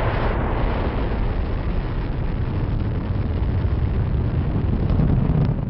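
Rocket launch: the loud, steady, deep rumble of the rocket engines' exhaust as the rocket climbs.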